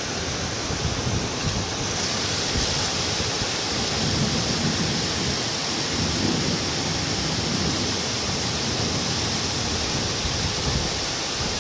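Heavy rain and floodwater running along a street, heard as a steady hiss of water.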